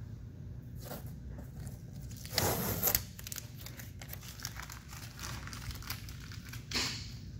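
Masking tape being peeled off a truck's painted metal hood: a few short ripping sounds, the loudest and longest about two and a half seconds in, another just before the end.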